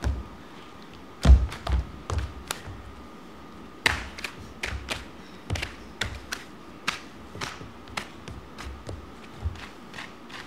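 Irregular sharp taps and slaps with low thumps from performers moving on a wooden stage, heaviest early on and then coming about two a second.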